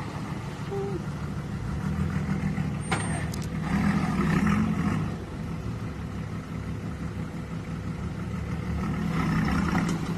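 Four-wheel-drive ute's engine running as it crawls through a deep rut, a steady drone that swells louder about four seconds in and again near the end. A couple of sharp clicks come about three seconds in.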